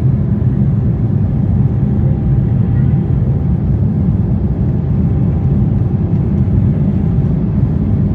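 Steady low rumble inside the passenger cabin of an Embraer 195 in flight: its twin GE CF34 turbofan engines and the rush of air over the fuselage.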